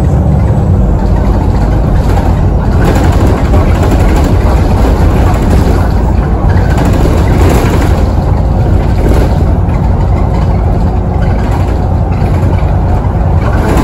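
Onboard a VDL SB200 Wrightbus Pulsar 2 single-deck bus under way: the engine and road noise are loud and steady, heard from inside the cabin.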